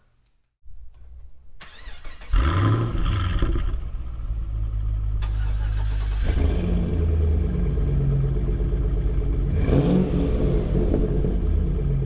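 Car V8 engine starting about two seconds in with a short rev, then idling steadily; the revs swell again briefly near ten seconds.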